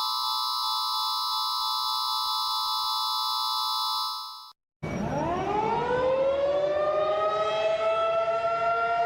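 A steady electronic alert tone of several held pitches fades out about four seconds in. After a short silence a civil defense siren winds up, its chord of tones rising in pitch and then holding steady at full pitch.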